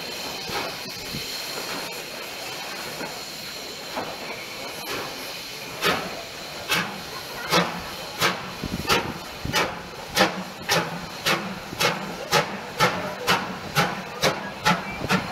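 BR Standard Class 5 4-6-0 steam locomotive 73156 pulling away. Steady steam hiss at first, then sharp exhaust chuffs start about six seconds in and quicken from under two to over two a second as it gathers speed.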